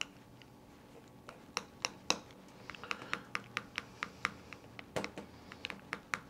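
A metal fork clicking and scraping against a small glass bowl in quick irregular taps, several a second, starting about a second in, as pre-softened butter is mashed together with olive oil.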